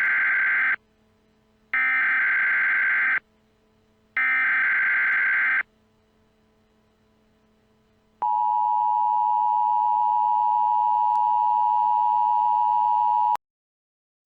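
Emergency Alert System tones: three warbling SAME digital header bursts, each about a second and a half long with a second of silence between them, the first already under way. About eight seconds in comes the steady two-tone EAS attention signal, held for about five seconds before cutting off abruptly.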